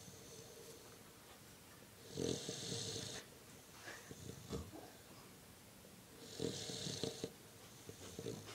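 Snoring: two long snores about four seconds apart, with faint snuffles in between.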